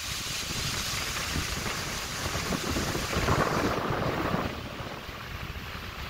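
Steady rushing hiss of a high waterfall, with wind buffeting the microphone in low rumbles. It swells louder a little past halfway, then eases off.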